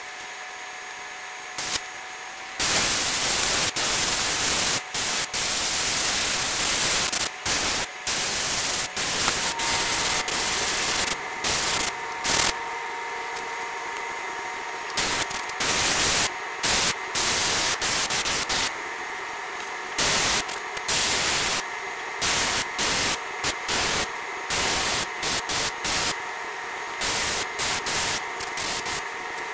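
Airbrush spraying paint, a hiss that comes and goes as the trigger is pressed and released: one long spray beginning a few seconds in, then many short bursts. A faint steady hum runs underneath.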